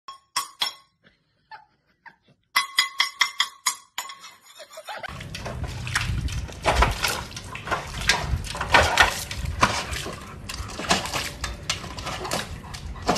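A few short ringing clinks and a quick rattle of clicks, then, from about five seconds in, a dog splashing its paws in a metal water bowl: irregular sloshes and splashes over a steady low rumble.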